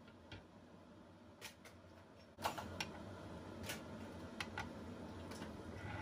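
Empty glass mugs set down on a metal-handled serving tray: a handful of light, sharp clicks and clinks, most of them in the second half, over a low room hum.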